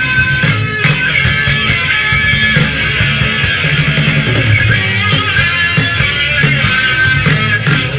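Live rock band playing: electric guitars over bass guitar and drums, loud and steady.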